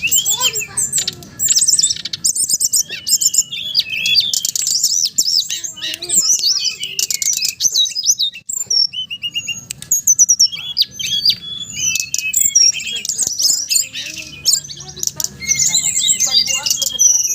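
Dense, unbroken songbird chirping and trilling: many quick overlapping notes and short warbled phrases. It is a bird-song lure (pancingan) recording, played to get a captive brown-chested jungle flycatcher to start singing.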